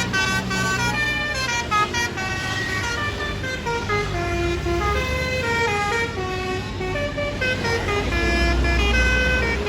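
A bus's Basuri telolet horn, a multi-trumpet air horn, playing a long melody of quick notes stepping up and down in pitch. The bus engine's low rumble grows louder near the end.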